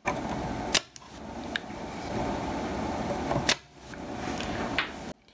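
Desoldering work with a spring-loaded solder pump and soldering iron on a range-switch lug: a steady hiss broken by a few sharp clicks, the loudest about three and a half seconds in.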